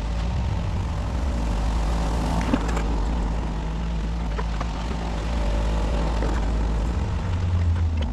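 Kubota 33 mini excavator's diesel engine running steadily under work, with a few light knocks.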